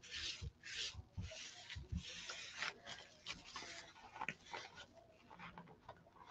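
A wad of plastic wrap rubbed back and forth over damp decoupage paper on a wooden board: faint rasping strokes that thin out after a couple of seconds into light crinkles and ticks.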